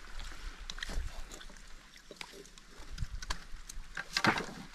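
Small scattered clicks and scrapes of hands and knives working raw seafood on plates and rocks, with a louder rustle or scrape about four seconds in, over a low steady rumble.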